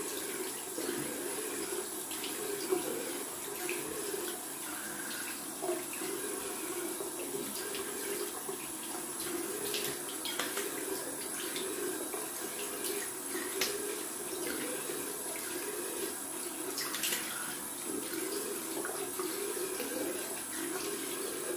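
Bathroom tap running steadily into a sink, with occasional splashes as the face is rinsed off after a shave.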